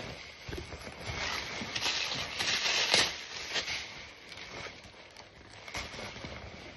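A kangaroo-leather racing suit and its clear plastic wrapping being handled, crinkling and rustling irregularly, with the sharpest crackle about three seconds in.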